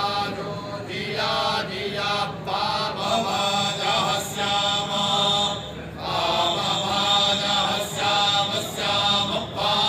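A group of men chanting Vedic Sanskrit mantras in unison, with the leader's voice amplified through a microphone. The recitation runs in phrases broken by short pauses for breath, with a longer pause about six seconds in.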